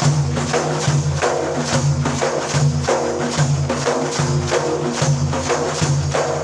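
Instrumental break in an Iraqi madih song: frame drums with jingles beat a steady, quick rhythm over a held, pitched accompaniment.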